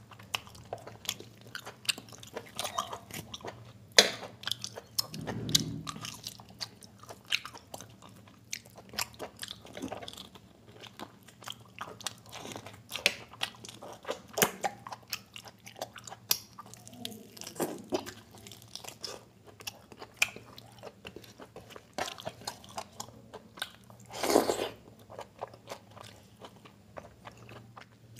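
Close-up chewing and biting of mutton and biryani rice eaten by hand: wet, irregular mouth clicks and smacks, with now and then a louder burst as meat is bitten from the mutton bone.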